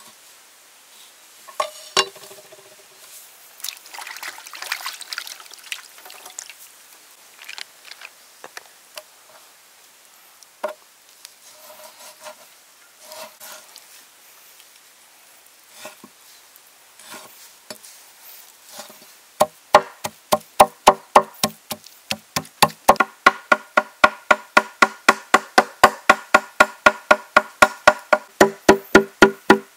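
Steel cleaver on a wooden chopping block: a few scattered cuts and knocks as squid and raw meat are sliced, then from about two thirds in a fast, even run of chops, about four or five a second, as the meat is minced by hand.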